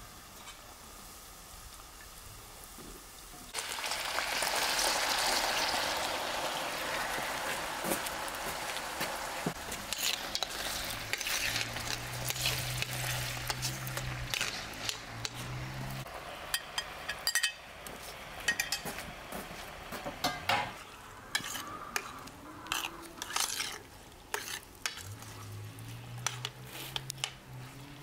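Diced potatoes go into hot oil in a stainless steel frying pan, setting off a sudden loud sizzle about three seconds in. The frying goes on, slowly easing, while a metal spoon stirs the potatoes and clinks against the pan.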